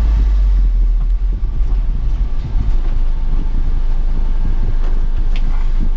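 Warm 660cc engine of a 1993 Honda Acty kei truck running, heard from inside the cab as the truck is driven off: a steady low rumble with road and drivetrain noise.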